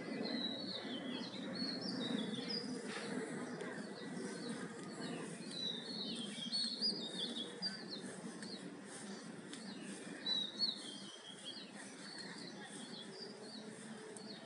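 Small birds chirping in short runs of quick high calls that rise and fall in pitch, over a steady background of outdoor ambient noise, picked up by a smartphone's microphone.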